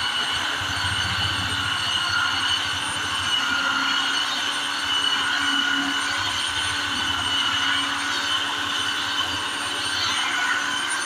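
Handheld electric belt sander running with a steady whine as it sands the face of a thin wooden board.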